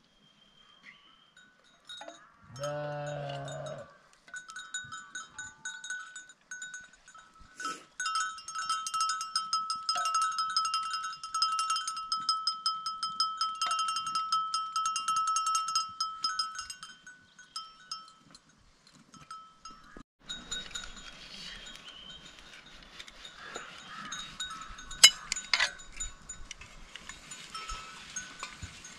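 A sheep bleats once, then livestock neck bells ring in a quick, steady jangle for about ten seconds. In the last third a rougher noise with a few sharp knocks takes over.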